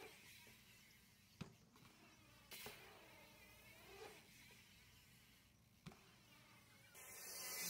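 Faint BMX tyres rolling on concrete, with a few light clicks, near silence otherwise; a hissing roll starts to swell near the end.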